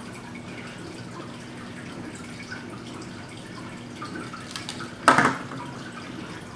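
Steady low room hum with a few faint ticks, then one sharp knock about five seconds in as a long-reach utility lighter is set down on a wooden tabletop.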